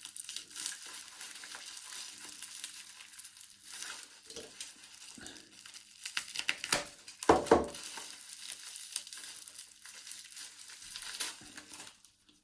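Packaging crinkling and rustling as a small padlock is unwrapped by hand, an irregular crackle with a few louder crunches, the loudest about seven seconds in.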